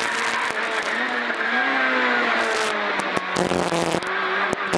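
Peugeot 106 rally car's engine heard from inside the cabin, pulling hard, then dropping in revs a few seconds in as the car slows for a hairpin, with a few sharp clicks.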